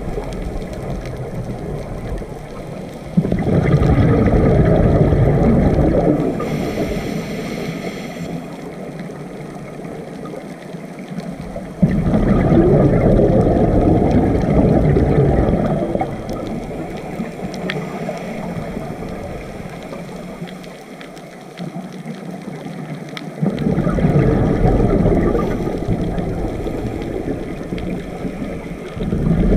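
Scuba diver breathing through a regulator underwater: three long exhalations, each a few seconds of loud bubbling rumble, coming about every ten seconds, with quieter stretches between and a brief high hiss of inhalation after the first.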